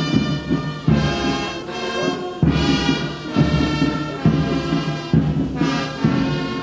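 Brass band music: held brass chords over a drum struck on strong beats about once a second, in the manner of a military band playing at a parade.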